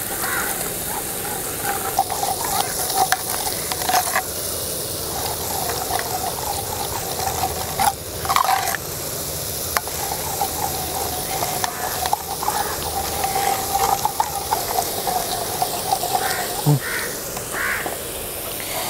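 Hot oil sizzling steadily as boondi batter drips through a perforated ladle and fries in the pan, with a few brief knocks.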